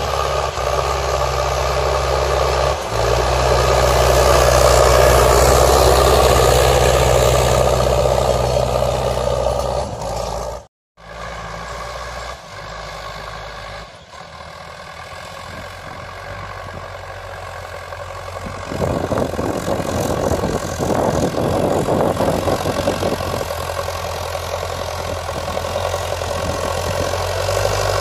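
Sonalika All Rounder 55 tractor's diesel engine running steadily under load as it pulls a tined cultivator through the soil. The sound cuts out for a moment a little before halfway, comes back quieter, then grows louder and rougher again from about two-thirds of the way in.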